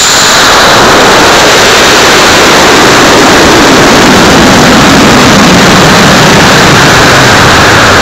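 Loud, steady rushing noise that overloads a model rocket's onboard camera microphone: the Binder Design Jackhammer I180 Skidmark motor burning and air rushing past the airframe in boost and climb.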